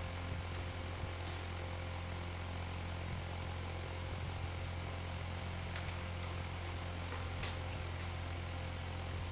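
Steady low hum with a faint hiss, with a few soft clicks and rustles from the puppets being handled, about a second in and again twice near the end.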